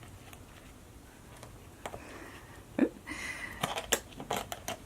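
Light clicks and taps of plastic Play-Doh toy pieces being handled, with a quick run of them in the second half.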